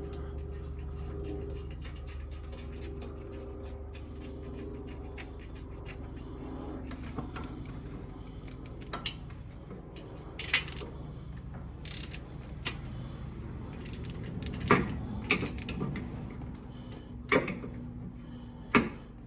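Hand tools clinking and knocking on metal during spark plug installation: scattered sharp clanks, most in the second half, over a steady low hum.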